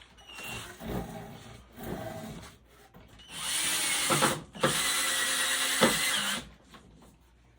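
Handsaw cutting wood: a few short, light strokes, then two long, loud strokes with a brief pause between them.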